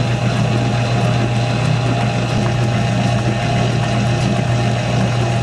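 Electric dough mixer running as it kneads a large batch of hotteok dough: a loud, steady motor hum.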